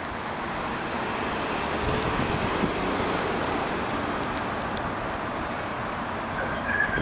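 Steady city street traffic noise, rising over the first couple of seconds and then holding level.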